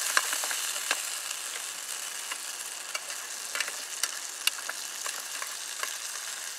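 Sausages sizzling in a hot aluminium army mess tin, with irregular clicks of a metal fork tapping and scraping the tin as they are stirred.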